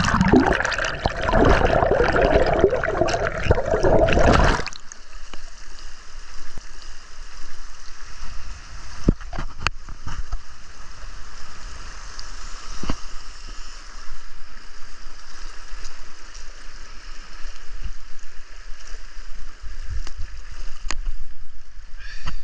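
Loud gurgling rush of river water heard underwater for about the first four and a half seconds, then, once the picture is above the surface, a quieter steady rush of the current flowing around the wader, with a few sharp clicks.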